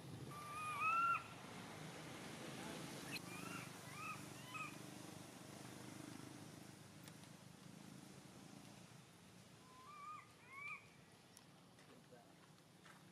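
Baby macaque crying: short, high calls, each rising and then falling in pitch. The loudest pair comes about a second in, a few more follow a couple of seconds later, and two more come near the end.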